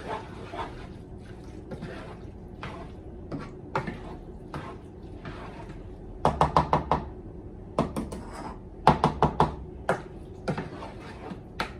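Black spoon stirring wet corn kernels in a saucepan, scraping and knocking against the pot. Two flurries of quick taps come past the middle, one a little after six seconds in and one around nine seconds.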